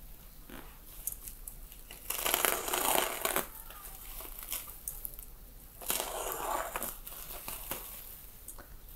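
Bubble wrap crinkling and rustling as it is cut and pulled open around a cardboard box, loudest about two seconds in and again about six seconds in.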